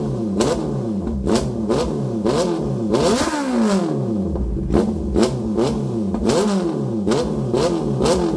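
Honda CB650R inline-four through an IXIL Carbon Extreme exhaust with its silencer removed, revved in quick throttle blips about twice a second. Each rev rises and falls in pitch, with one longer, slower rev about three seconds in. The open exhaust sounds crisp and very loud.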